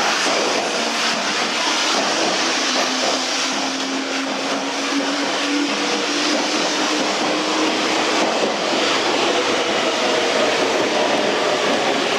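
Meitetsu 1030 series electric train pulling into the platform: a steady rush of wheels and running gear, with a held low tone from about a second in to about eight seconds, and higher tones near the end.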